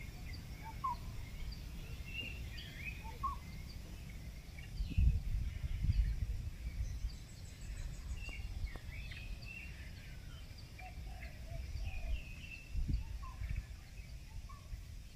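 Small birds chirping here and there over a low, uneven outdoor rumble that swells twice, most strongly about five seconds in.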